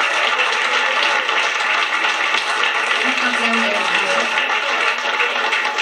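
A crowd clapping, with voices mixed in: a dense, steady wash of noise.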